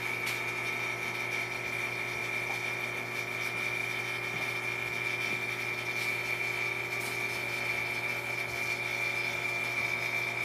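Steady high-pitched whine over a low electrical hum from the Angel I plasma apparatus running under mains power, with a few faint ticks.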